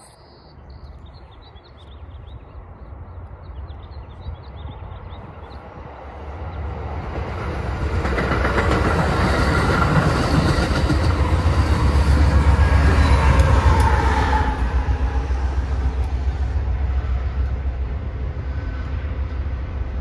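A Shore Line East passenger train of coaches passes close by. Its low rumble builds from about six seconds in to a loud clatter of wheels over the rail joints, then eases to a steadier rumble.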